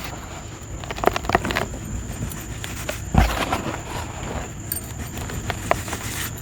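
Lumps of black dirt crumbling with crispy, gritty crackles and scattered small knocks, and one heavier thud about three seconds in.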